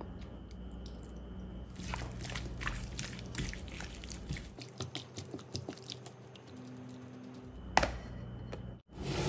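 Wet squelching and crackling of a bare hand mixing raw chicken pieces into a yogurt and spice marinade in a bowl, thinning out after a few seconds. A sharp knock follows as a silicone lid is set on the bowl, then a brief rush of noise right at the end.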